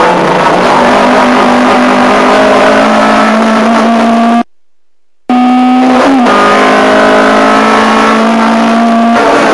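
Four-cylinder 1.4 Zetec engine of a Ford Fiesta race car heard from inside the cockpit, revs climbing steadily down a straight, with a drop in pitch near the end. The sound cuts out completely for about a second midway.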